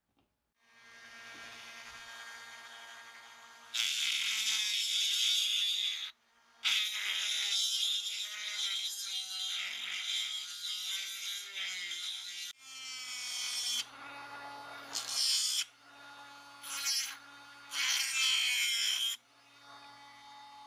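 Flex-shaft rotary tool running with a small grinding stone against a toy tractor's wheel hub: a steady motor whine, with loud grinding noise whenever the stone bites, in two long passes and then several shorter touches.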